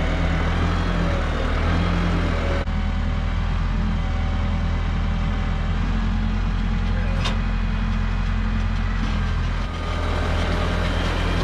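New Holland T2420 compact tractor's diesel engine running steadily, with one brief sharp click about seven seconds in.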